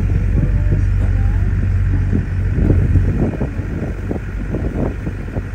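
Steady low engine drone aboard a river vehicle ferry under way, with wind rustling on the microphone, gustier from about halfway through.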